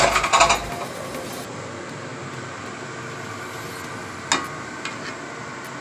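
A brief clatter of pots and pans at the start, then a steady kitchen hiss, with a sharp click a little past four seconds and a fainter one about half a second later.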